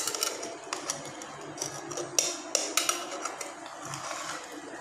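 Metal ladle scraping through cooked biryani rice and knocking against the sides of a metal pressure cooker, with a string of sharp, irregular clinks.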